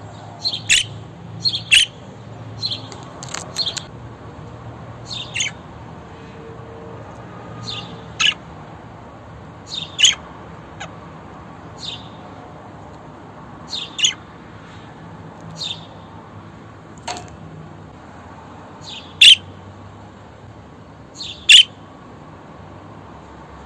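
Budgerigar giving short, sharp chirping calls, singly or in quick pairs, about every one to two seconds, some sliding down in pitch. Two calls late on are much louder than the rest.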